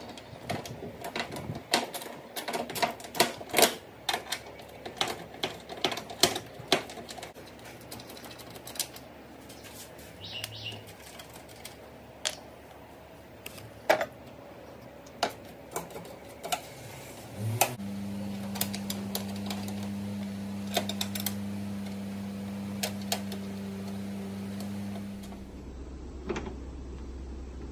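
Ratchet wrench with a 12 mm socket clicking as it turns a bonnet hinge bolt, in quick runs of clicks that thin out to single clicks. About two-thirds of the way through, a steady low hum starts and drops lower near the end.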